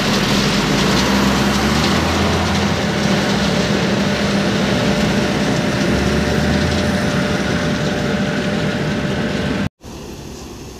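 Diesel engine of a Tata dump truck running close by as the truck pulls away over gravel, a steady low drone. It cuts off suddenly near the end, leaving a much quieter background.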